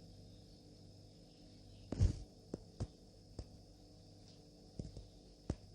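A few light knocks and clicks of food being handled in a baking tray, over a faint steady hum; the loudest knock comes about two seconds in, then smaller clicks follow at irregular intervals.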